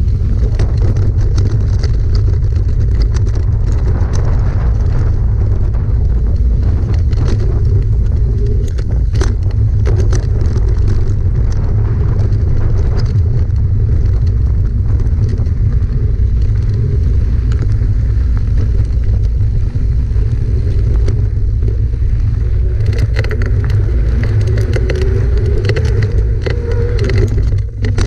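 Mountain bike riding fast down a dry, rocky dirt trail, heard from on the bike: a steady low rumble of wind on the microphone and tyres rolling over gravel, with frequent rattles and knocks as the bike hits rocks and bumps. The knocks come thicker near the end.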